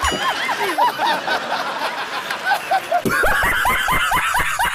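Laughter: a quick run of short, high-pitched laughs, picking up pace about three seconds in.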